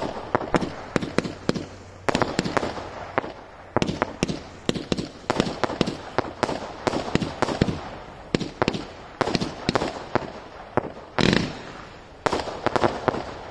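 Jorge crossette firework cake firing: red comets launch and split into crossettes, giving a rapid run of sharp bangs and cracks, several a second in uneven clusters. Louder bursts come about two, eleven and twelve seconds in, and the firing stops near the end.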